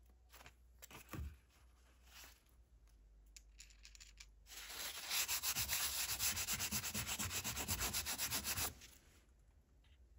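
A cotton pad scrubbed rapidly back and forth on a steel hammer head, about ten strokes a second, for roughly four seconds starting near the middle. Before it come a few light handling knocks.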